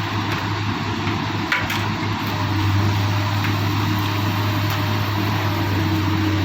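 Excavator's diesel engine running steadily with a low hum, one brief knock about a second and a half in, and the engine getting a little louder about two and a half seconds in.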